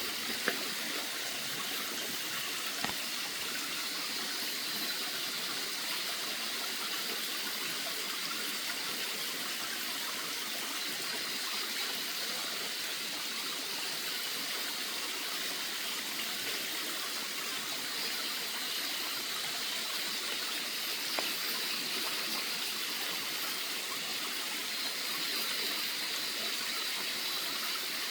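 Steady rushing of running water, like a forest stream, with faint high tones coming and going over it and a couple of faint clicks.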